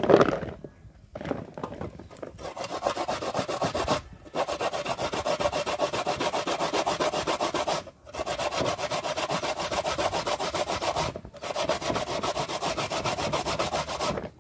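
Fresh coconut meat being grated by hand on a metal box grater: fast, even rasping strokes, about four a second, in runs of a few seconds broken by short pauses. A single thump comes right at the start.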